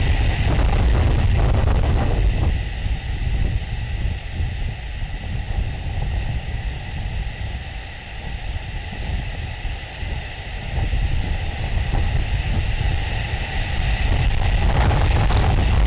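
Storm wind buffeting the microphone of an outdoor nest camera: a steady low rumble that swells and eases, dipping in the middle and growing louder again near the end, with a thin steady high tone running through it.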